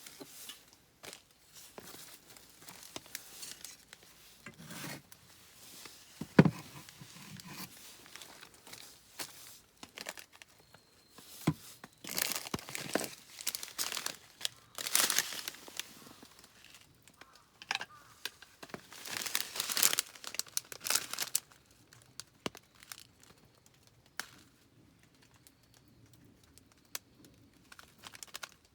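Crinkling and rustling of something being handled, in irregular bursts, with a sharp knock about six seconds in. It quietens towards the end.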